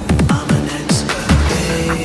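Electronic dance music with a fast, heavy bass kick beat; the beat drops out about three-quarters of the way through, leaving held synth tones.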